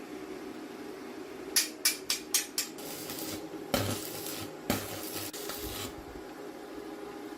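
Metal tools and parts clinking during workshop repair work: a quick run of about five sharp clanks, then scraping and rattling of metal.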